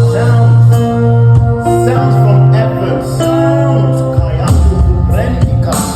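Instrumental intro of a gospel worship song: held keyboard chords over a steady bass, with a few drum hits in the second half.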